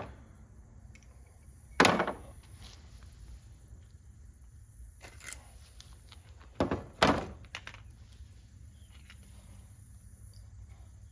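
Scrap pieces from copper-aluminum radiators tossed down with the sorted scrap: a few separate hard thunks, one about two seconds in and a pair just past the middle, with lighter knocks between.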